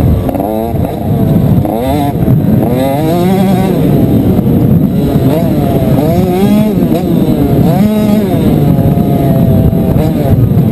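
Motocross bike engine revving hard and backing off again and again as the rider goes through the gears around the track, rising and falling in pitch every second or two. Loud throughout.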